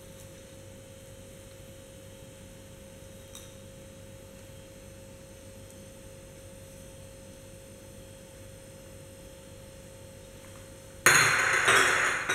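Quiet room tone with a steady hum. About eleven seconds in there is a sudden loud burst of noise lasting a second or so.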